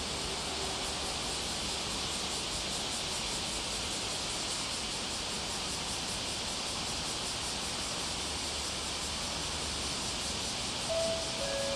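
Steady high hiss of a summer cicada chorus. Near the end the station's approach chime begins, a few clear notes stepping down and back up.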